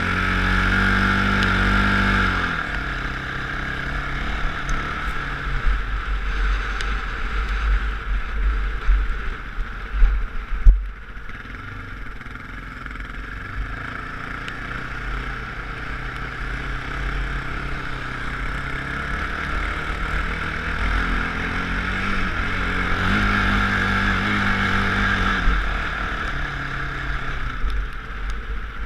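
Off-road vehicle engine running as it is ridden over sand dunes, its pitch rising and falling with the throttle, under heavy wind rumble on the microphone. A few sharp knocks about ten seconds in.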